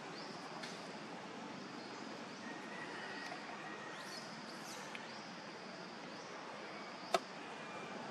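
Faint outdoor ambience with a few brief, high, faint chirps scattered through it, and one sharp click about seven seconds in.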